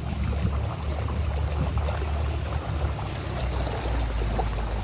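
Motorboat under way: a steady low engine hum under a constant rush of water and spray.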